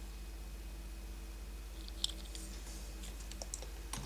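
Faint clicks of small die-cast metal toy cars being handled and set down, the clearest about two seconds in and a few more near the end, over a steady low hum.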